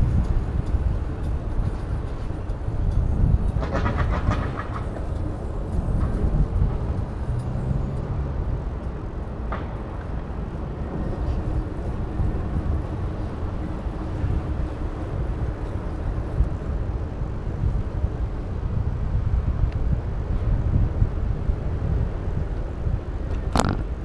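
Steady low rumble of wind on the microphone and city road traffic, heard from a moving bicycle, with a brief pitched whine about four seconds in and a short sharp click near the end.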